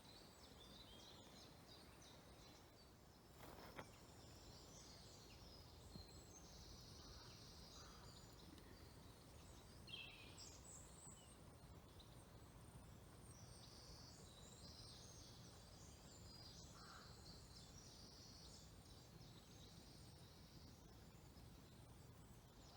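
Near silence with faint, distant songbirds chirping and trilling on and off, and one soft click about four seconds in.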